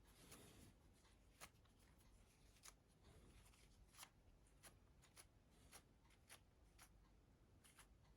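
Faint, scattered small clicks and light rubbing from handling a mobile phone's display while dust is wiped off it, over a low hiss.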